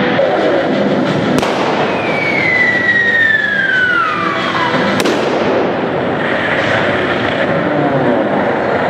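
Simulated battle effects: two sharp bangs, one about a second and a half in and one about five seconds in, with a long falling whistle like an incoming shell running down into the second bang, over a steady noisy background.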